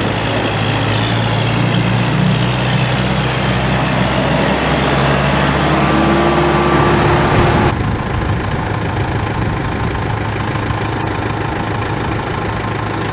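2007 Kubota M7040 tractor's four-cylinder Kubota diesel engine running as the tractor drives past on gravel, with the noise of the tyres rolling over the stones. About eight seconds in, the sound cuts abruptly to the same engine idling steadily.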